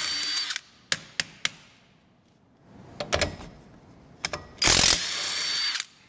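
Cordless impact wrench running in two bursts of about a second each, spinning lug nuts off a trailer wheel's studs, with a steady high whine. A few sharp metallic clicks come between the bursts.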